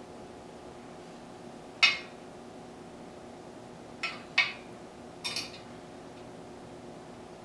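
Short, sharp metallic clinks from the steel spokes of a bicycle wheel being handled on a truing stand. There are five: the loudest about two seconds in, then two more a little after four seconds and a quick pair at about five and a half seconds.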